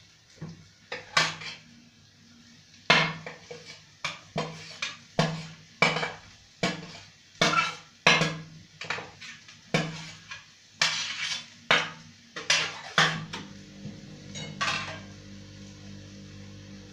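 Stainless steel tray knocking and scraping against the rim of a kadhai as grated cabbage is tipped into it, a run of metal clanks about one or two a second. Near the end the clanks stop and a steady low hum remains.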